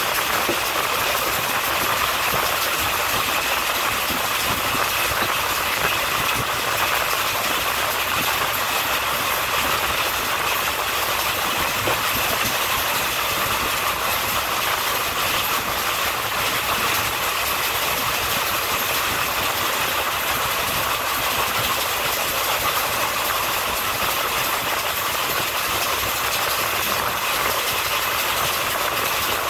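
Passenger train running at speed: a steady rush of wheels on the rails and wind past an open coach window, unchanging throughout.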